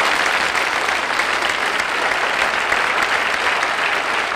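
A studio audience applauding.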